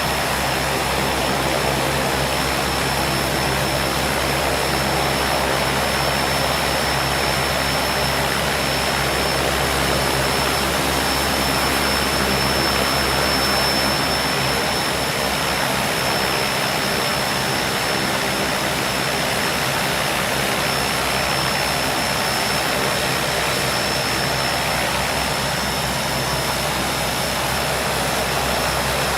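Beechcraft King Air twin-turboprop engines and propellers running at taxi power, heard from outside the aircraft: a steady high turbine whine over an even propeller drone, holding level throughout.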